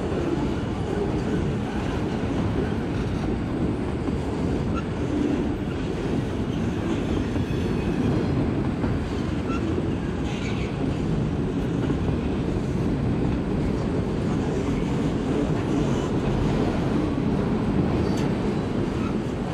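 Freight train's autorack cars rolling past at close range: a steady rumble and rattle of steel wheels on rail.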